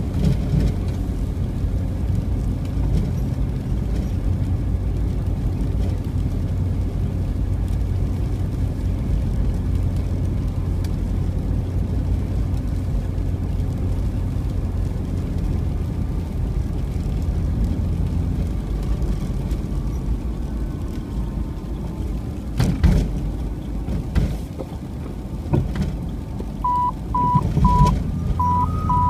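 Steady low road and engine rumble of a car driving, heard from inside the cabin, with two sharp thumps a little past the middle. Near the end comes a quick run of about six short, even beeps at one pitch.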